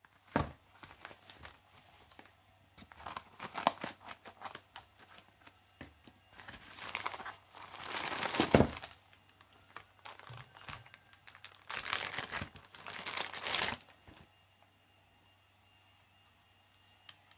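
Hands tearing open a yellow mailer envelope and crinkling the clear plastic bag inside, in bursts for about fourteen seconds, loudest a little past the middle. The crinkling stops about fourteen seconds in, leaving faint handling of the plastic dive housing.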